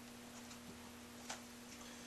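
Faint, irregular small clicks from an office chair's armrest hardware being tightened by hand, the clearest a little past halfway, over a steady low hum.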